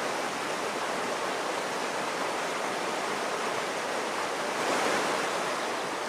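Alpine mountain stream rushing and cascading over rocks, a steady, even rush of water.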